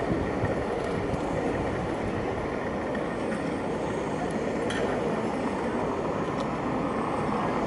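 Steady outdoor street noise, mostly a low rumble, with a few faint ticks.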